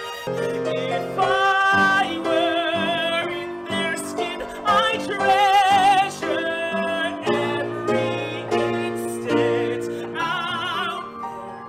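Musical-theatre singing: a voice with strong vibrato moving through sung phrases and held notes over instrumental accompaniment.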